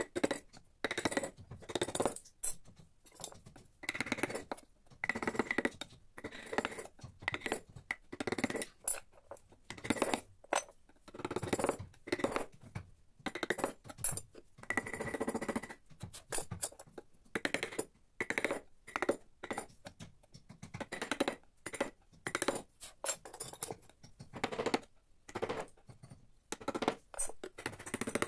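Steel chisels and gouges cutting and scraping teak wood by hand, in an uneven series of short crisp strokes, one or two a second, with metal tools clinking against one another now and then.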